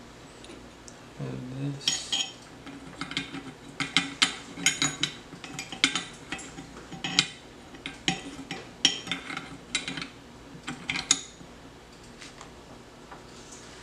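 Small metal shifter parts clicking and clinking against each other as they are handled and fitted together, in an irregular run of sharp taps.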